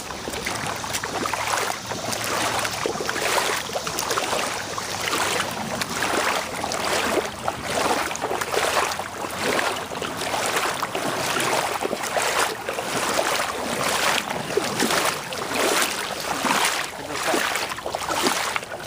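Shallow creek water sloshing and splashing in a steady run of strokes, about one or two a second: someone wading along the creek.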